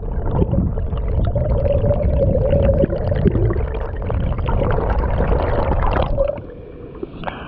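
Mountain stream recorded underwater: a loud, dense rumble of water rushing over rocks, with many small bubble pops and clicks and a steady hum through it. It drops away sharply about six seconds in.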